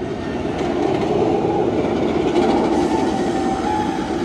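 Steel roller coaster train (Nitro) running along its track: a steady rumble and clatter with a faint wheel whine that drifts in pitch, growing a little louder after about a second.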